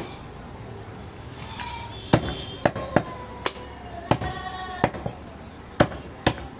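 Butcher's cleaver chopping through a goat carcass on a wooden log block: one sharp chop at the start, then about eight more, irregularly spaced, from about two seconds in.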